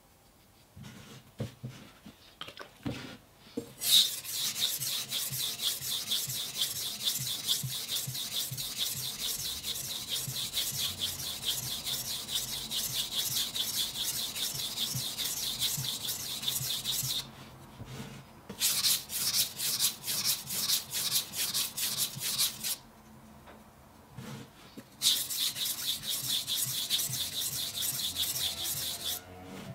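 A kitchen knife's steel blade ground back and forth on a wet whetstone in fast, even strokes. After a few quiet seconds with light knocks, the grinding runs in three spells with two short pauses.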